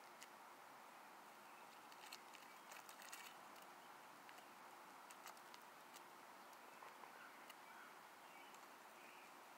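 Faint scratching and pecking of hens in loose dirt: scattered soft ticks, thickest about two to three seconds in, over a quiet outdoor hiss.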